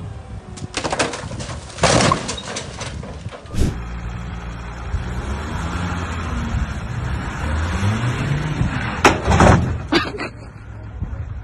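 Flatbed tow van engine running and revving, its pitch rising about two-thirds of the way through, with loud bangs near the end. Before it, a few seconds of rushing, clattering noise.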